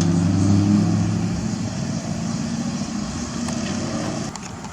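A car's engine running as it drives past and away, its low hum fading and dropping off noticeably near the end.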